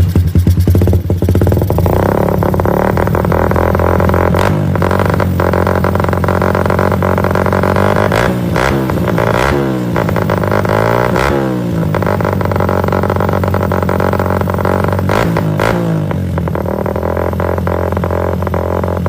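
Suzuki Raider 150 single-cylinder four-stroke engine idling through an aftermarket exhaust. It is blipped about four seconds in, revved up and down several times in the middle, and given another short blip near the end.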